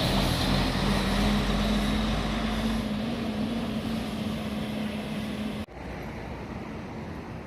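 Intercity diesel coach bus engine running as the bus pulls past, a steady hum slowly fading. About five and a half seconds in the sound cuts off abruptly to a quieter background.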